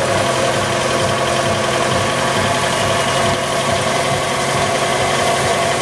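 Fordson Major tractor engine running steadily under load, belt-driving an Ajuria threshing machine off its pulley, with the thresher running at the same time.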